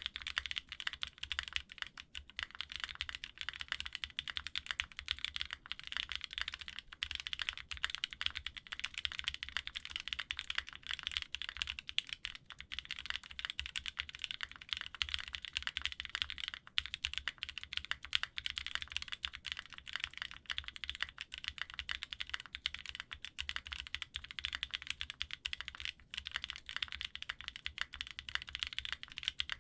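Fast, continuous typing on a custom mechanical keyboard with lubed Gazzew Boba LT linear switches, a polycarbonate plate and GMK keycaps: a dense run of keystrokes with no real pauses.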